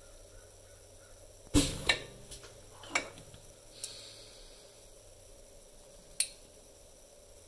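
Sharp metal clicks and knocks as an aluminum injection mold block is taken out of a benchtop injection-molding jig and handled: three loud knocks between about one and a half and three seconds in, a lighter tick, then one more sharp click later on.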